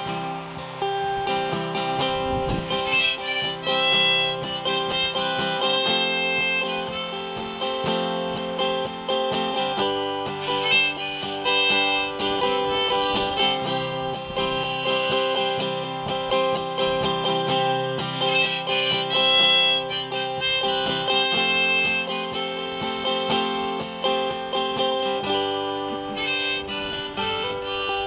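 Instrumental break in a folk song: a harmonica plays sustained melody notes over acoustic guitar accompaniment.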